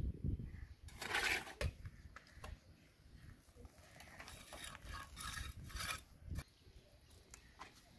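A steel pointing trowel scraping and smoothing wet cement mortar along the edge of a brick top, in a few rasping strokes, clearest about a second in and again around five seconds in.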